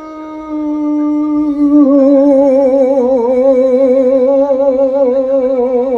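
Brindle boxer-type dog howling: one long held note that starts to waver and grows louder about two seconds in.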